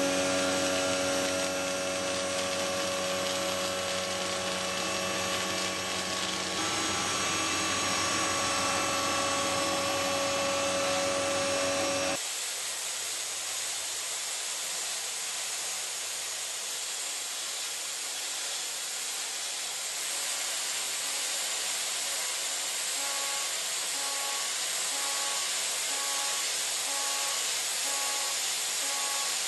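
CNC milling machine cutting steel with a gold-coloured end mill: a steady whine of tones over cutting noise. About twelve seconds in, the sound changes abruptly to a hissing cut, with a faint on-off tone near the end.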